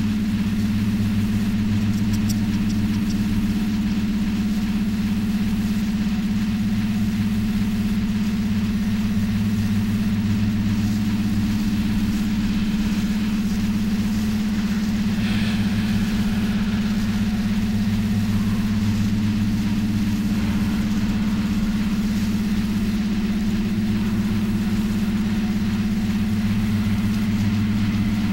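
Steady low electronic drone of several held low tones, engine-like, made from environmental and industrial sound picked up by a microphone and run through a mixer oscillator and a Korg analog synth. A faint brief higher sound rises over it about halfway through.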